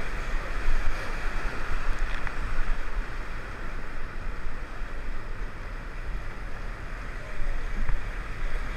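Whitewater rapids rushing steadily around an inflatable raft, with wind rumbling on the microphone.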